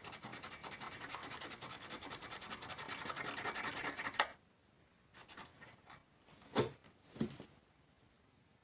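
Rapid, continuous scratching of rust being scrubbed off the metal inside a 1940s Ensign Ful-Vue box camera, stopping abruptly about four seconds in. A few sharp knocks of handling follow.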